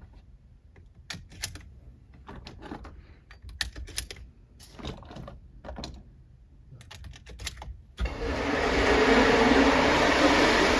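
Scattered sharp clicks and knocks as a pump-action shotgun and gear are handled at the shooting lane. About eight seconds in, a loud steady rushing noise cuts in abruptly.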